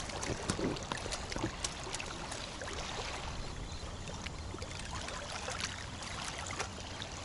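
Wind rumbling on the microphone over small waves lapping and splashing at the water's edge, with scattered little splashes and ticks.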